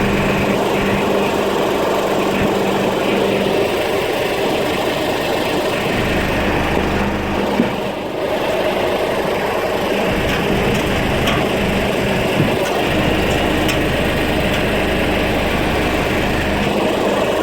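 A motor running steadily, with two short knocks, one about halfway through and one a few seconds later.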